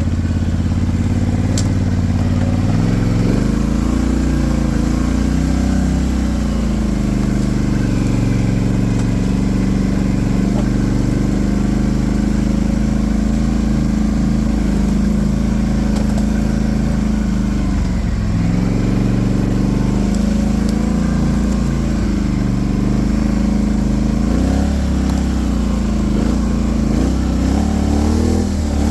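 Polaris Sportsman 850 SP ATV's twin-cylinder engine running under way at a mostly steady speed. Its pitch rises about three seconds in and dips briefly about 18 seconds in and again near the end as the throttle changes.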